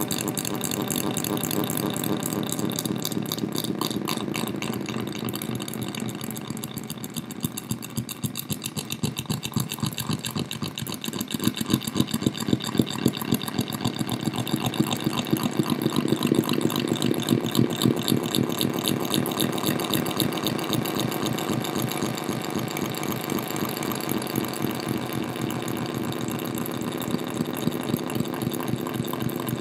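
Electronic buzz from strobe lights flickering onto a solar cell, fed through a delay pedal and a distortion pedal to an amplified speaker: a dense, rapid train of pulses. It eases off a little about a quarter of the way in, then comes back louder with sharper, uneven pulses through the middle.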